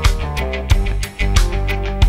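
Background rock music with guitar and a strong, steady beat about every two-thirds of a second.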